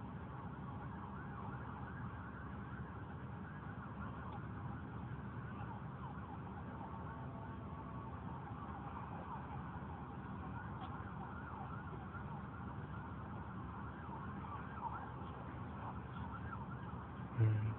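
Steady road and engine noise heard from inside a moving car, with faint wavering tones in the background. A brief, louder low sound comes near the end.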